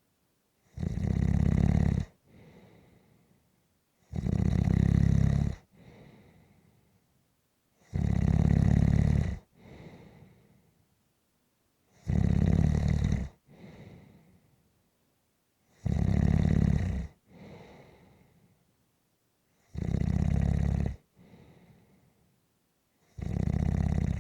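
Slow, regular snoring: a loud snore on each breath in, about every four seconds, each followed by a softer breath out.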